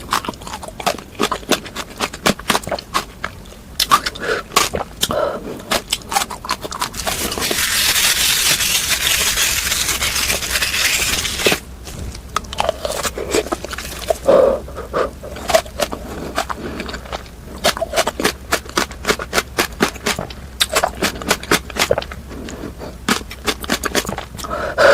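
Close-miked crunching and chewing of frozen fruit: quick, crisp cracks and clicks throughout. A steady hiss lasts about five seconds in the middle.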